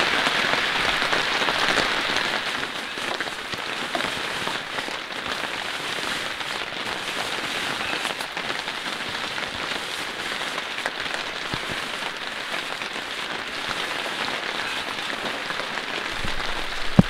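Heavy rain falling steadily on a tarp shelter and the surrounding forest, a little louder in the first two seconds.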